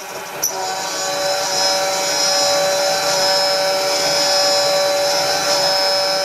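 End mill in a drill-press milling machine cutting into a plate: a steady whine with several held tones that builds up over the first second and then stays even, after some brief high chirps at the very start.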